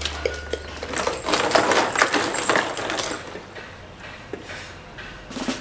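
Toys and wrappers being handled: a busy run of small clicks, taps and rustles, thinning out and quieting after about three seconds.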